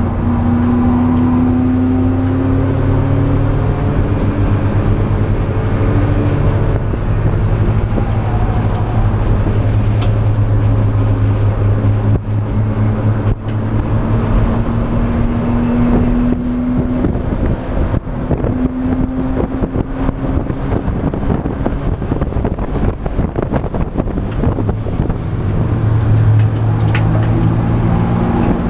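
Race car's engine heard from inside the stripped, caged cockpit, running hard under load and climbing in pitch as it revs up several times, with frequent short sharp knocks and rattles.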